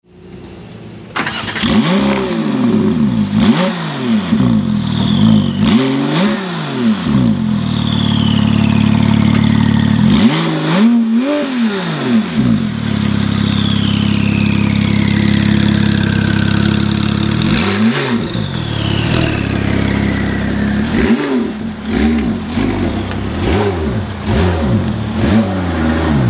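Porsche 997 GT2 RS's 3.6-litre twin-turbo flat-six with an aftermarket exhaust, starting up about a second in and then blipped through a series of loud revs with steady idling between them. After the revs the turbos whistle, falling in pitch as they spool down.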